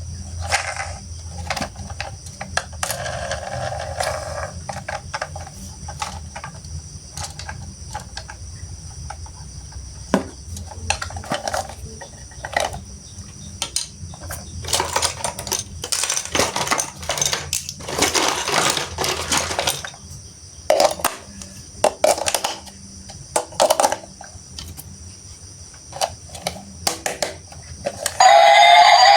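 Small hard plastic toy parts clicking, knocking and rattling as they are handled and fitted together, with a busier stretch of clatter and rustling in the middle. Loud music starts just before the end.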